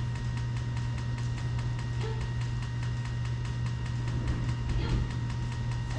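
A steady low hum, with faint brief sounds about two seconds in and again near the end.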